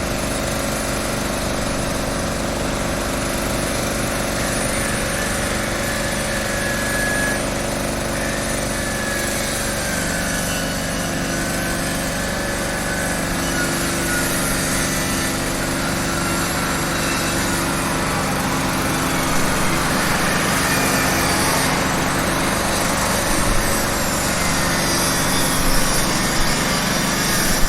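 Street construction site: machinery engines running steadily under a dense noisy din, with a few brief louder knocks in the last third.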